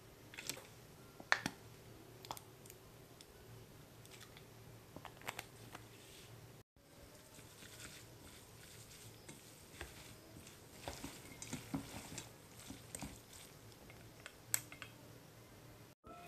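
Faint kitchen handling sounds: a few light clicks and taps while soup base is poured into a stainless steel bowl. After a cut, a utensil stirs a mayonnaise-dressed salad in the bowl, with soft wet squishes and clusters of clicks against the metal.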